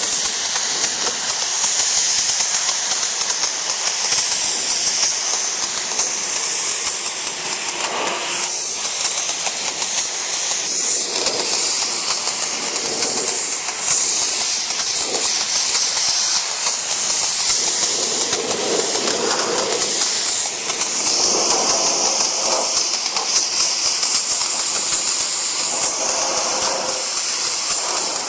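Pneumatic cartridge spray gun spraying sprayable seam sealer onto a car body panel: a steady, loud hiss of compressed air atomising the sealer.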